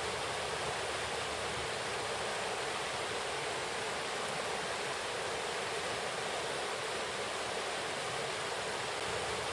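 Steady rush of a river flowing over a shallow, rippling stretch, an even hiss-like noise with no change in level.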